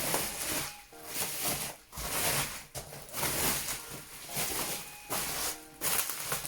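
Rustling and crinkling of packaging being handled, in a series of separate swells with short gaps between them.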